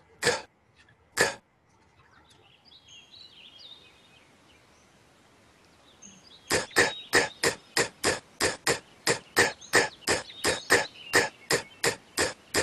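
Cartoon sound effects from an animated phonics slide as the caterpillar curls into a C. There are two sharp clicks at the start and faint chirping. Then, from about six and a half seconds in, a steady run of crisp clicks comes about four a second.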